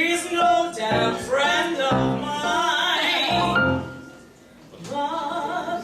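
A woman singing a comic cabaret song with piano accompaniment, in sung phrases with a short break about four seconds in.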